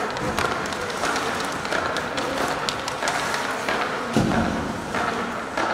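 Ice hockey play in an arena: sharp taps and clacks of sticks and puck and the scrape of skates over a murmur of spectators' voices, with a heavier thud about four seconds in.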